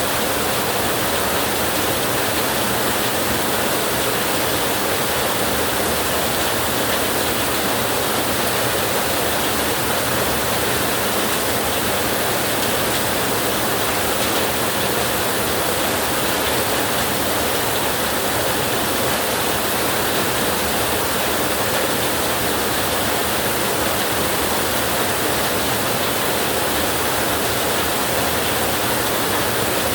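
Heavy rain falling on a tin roof, a dense, steady hiss with no change in level.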